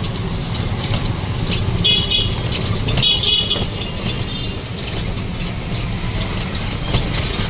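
Riding in a rickshaw through a busy market street: a steady low rumble of the ride and the traffic, with short high-pitched horn toots about two seconds in and again a second later.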